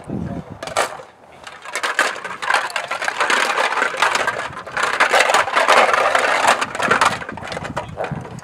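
Plastic bottles strung on a decoy's stick being shaken and knocked about: a loud crinkling, clattering rattle. It builds about two seconds in and eases near the end.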